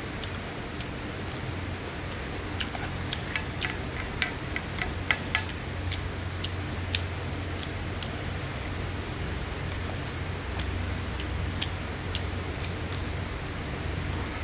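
Stainless steel spoon clinking and scraping against a stone-coated nonstick frying pan while scooping fried rice: irregular sharp clicks, thickest a few seconds in, over a steady low hum.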